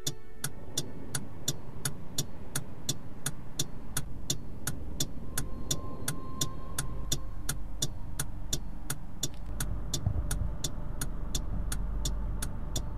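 Steady clock-like ticking, about three ticks a second, over the low rumble of a car engine idling; the rumble grows louder near the end.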